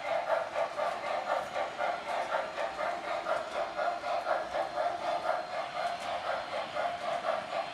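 Sound system of an MTH O gauge B&O steam locomotive giving a steady, rhythmic steam chuff as the model runs along the track.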